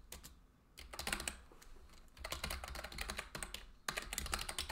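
Typing on a computer keyboard: runs of rapid key clicks with brief pauses between them, the longest run from about two seconds in to nearly four.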